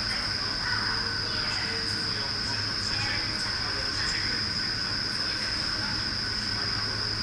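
Indoor vertical wind tunnel running at flying speed: a steady rush of air and fan drone with a constant high whine over a low hum.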